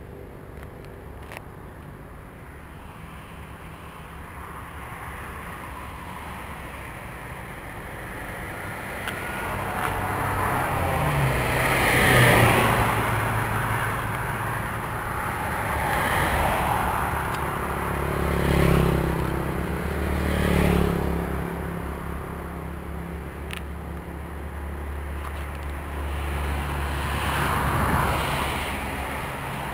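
Road traffic passing close by: several vehicles go by one after another, each swelling and fading, the loudest about twelve seconds in.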